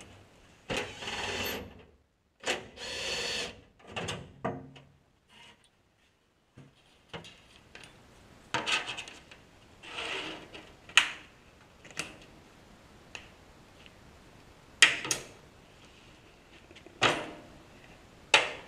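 Cardboard being handled and marked on a wooden workbench: two longer scraping rubs in the first few seconds, then scattered knocks, clicks and short scrapes.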